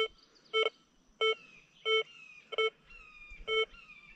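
XP Deus 2 metal detector sounding short target beeps of the same tone, six of them, about one every two-thirds of a second, as the coil sweeps back and forth over a gold ring beneath a fridge magnet in the dive program. It gives a two-way signal, a beep on each pass, which reads as a non-ferrous target that is still detected through the magnet.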